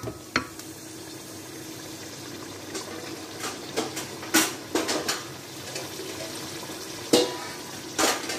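A cooking spoon knocking and scraping against an aluminium pot about nine times, the loudest near the end, over the steady hiss of beef and masala cooking in the pot.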